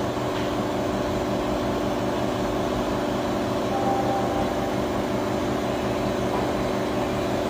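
A steady mechanical hum and hiss with several steady low tones, like a running machine or ventilation, with a faint short high tone about four seconds in.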